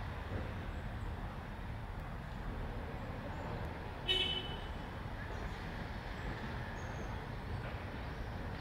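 Steady background noise with a low rumble, and one short high-pitched call about four seconds in.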